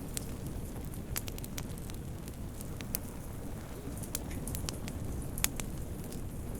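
Wood fire burning in a fireplace: a steady low rumble of flames with scattered sharp crackles and pops, the loudest pop about five and a half seconds in.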